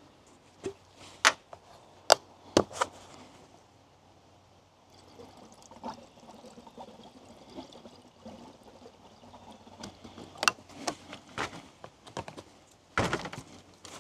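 Freshly mixed two-stroke fuel being poured from a gas can into a small engine's tank, with sharp knocks and clicks of the can and cap being handled, and a louder clatter near the end.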